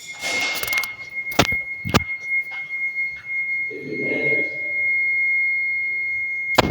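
An electronic alarm in the building sounding one steady, unbroken high-pitched tone, with two sharp knocks about a second and a half and two seconds in.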